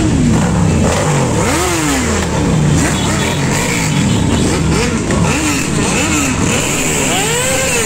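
A group of motorcycles riding by together, several engines revved up and back down again and again over a steady mass of engine noise.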